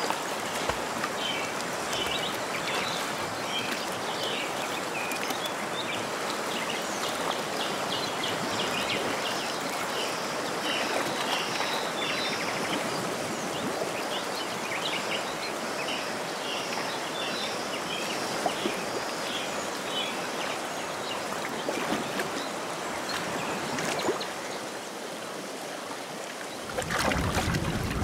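Steady rushing of a fast-flowing muddy river, with many short chirping calls above it. Near the end a louder, deeper rush takes over.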